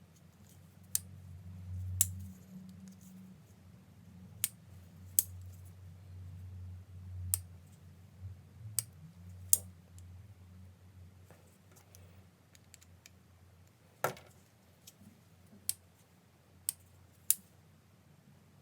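A dozen or so sharp clicks at irregular spacing from hands-on work on a Spyderco Delica 4 folding knife, over a faint low hum. One louder knock comes about two-thirds of the way in.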